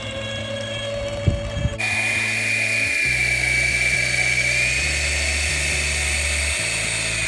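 Toy RC helicopter's small electric motors whining steadily as its coaxial rotors spin, starting abruptly about two seconds in after a couple of light knocks. Background music plays underneath.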